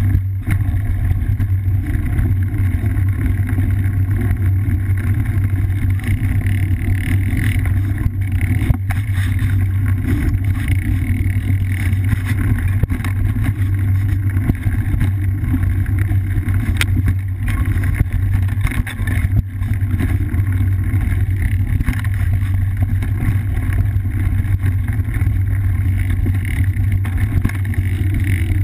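Steady low rumble of a cyclocross bike riding a dirt singletrack, heard through a bike-mounted action camera: tyre, frame and wind noise shaking the camera, with a few sharp knocks from bumps in the trail.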